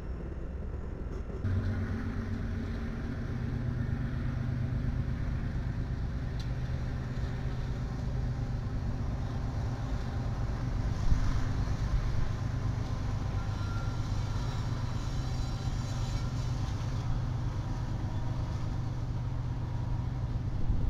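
A heavy engine running steadily with a low drone, starting about a second and a half in.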